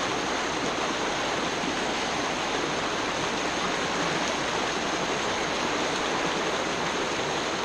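Fast, shallow river water rushing and churning over rocks and past fallen logs: a steady, even rush.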